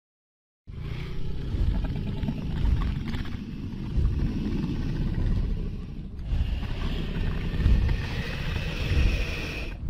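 Dragon wing-flapping sound effect for a hovering dragon: a deep, rumbling whoosh that swells and fades again and again, starting after a short silence.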